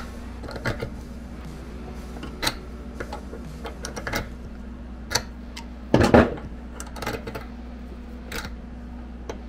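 Pliers gripping a bolt threaded into a steel barrel wedge and wiggling it to pull the wedge out of an axe head: scattered metal clicks and scrapes, with a louder burst about six seconds in, over a steady low hum.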